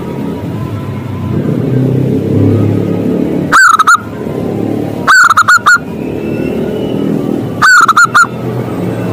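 Zebra dove (perkutut) calling: three loud call phrases a second and a half to two and a half seconds apart, each a short coo followed by a quick stutter of notes. A steady low rumble runs underneath.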